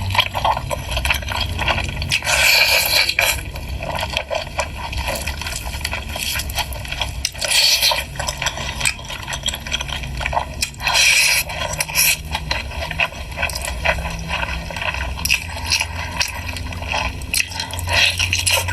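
Loud, wet chewing and mouth sounds of a person eating pork, with irregular sharper bites and smacks.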